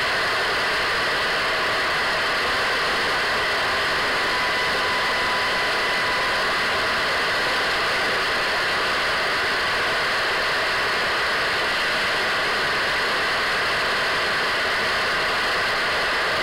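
Radio static: a steady hiss of an untuned radio, with faint thin whistling tones in it and a brief brighter whistle about four seconds in.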